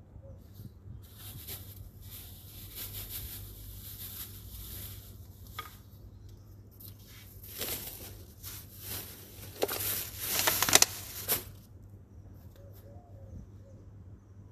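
A plastic bag crinkling and rustling as kitchen scraps and vegetable peels are emptied out and handled. It comes in irregular spells and is loudest about ten seconds in.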